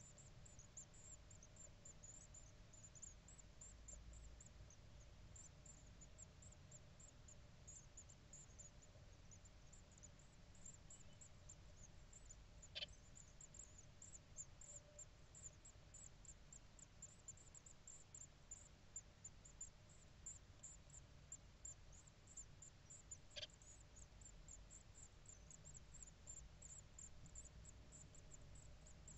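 Great tit nestlings begging in a nest box: a faint, rapid stream of thin, very high cheeps over a low steady hum. There are two sharp clicks, one about halfway through and one about three-quarters of the way in.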